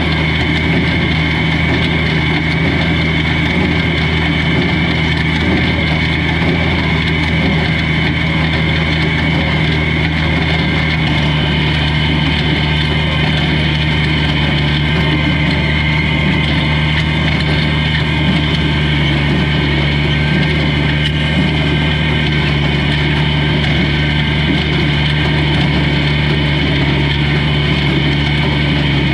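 Old tractor engine running at a steady speed, its pitch holding constant throughout.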